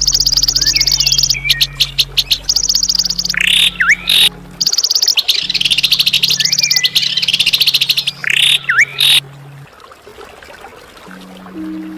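A songbird's harsh, rapid trills of sharp repeated notes, delivered in several long bursts with short stuttering breaks, over faint steady low tones; the bird falls silent about three quarters of the way in.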